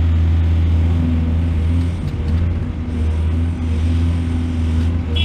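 Heavy diesel engine of an excavator or dump truck running steadily, with a slight dip in level about two seconds in.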